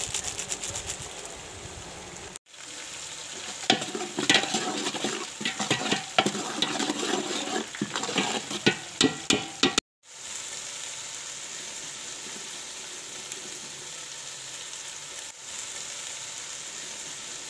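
Chicken pieces frying in hot ghee in a pot. Sharp crackles and pops come thick and loud through the middle stretch, then settle into a steady sizzle. The sound cuts out briefly twice.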